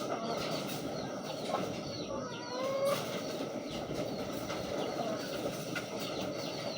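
Racing pigeons in a loft: many short bird calls scattered over a steady rushing background noise.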